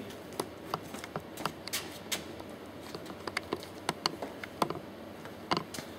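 Irregular light clicks and taps of small metal parts and tools being handled on a workbench.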